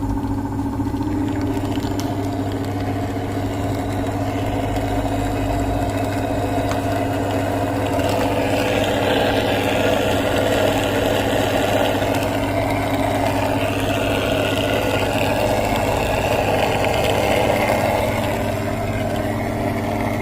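Washing machine drain pump running with a steady electric hum. A rushing noise over the hum grows louder from about 8 seconds in and eases off near the end.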